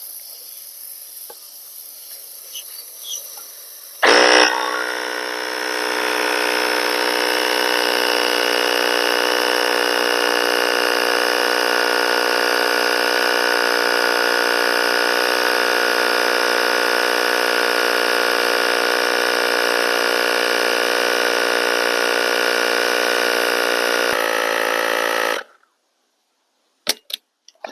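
Portable battery-powered tire inflator pumping up a car tire: its small compressor motor starts suddenly about four seconds in and runs as a loud, steady buzzing drone for about twenty seconds, then cuts off abruptly, the auto-stop at the set pressure.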